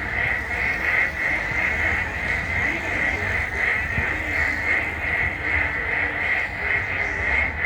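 Dense chorus of frogs calling from the water: a continuous, rapidly pulsing high trill from many frogs at once, with a few lower calls and a low rumble beneath.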